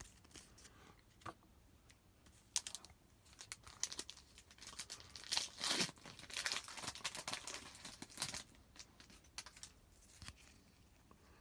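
Foil wrapper of a hockey card pack being torn open and crinkled, with the cards rustling as they are handled: irregular crackles and rustles through the middle of the stretch.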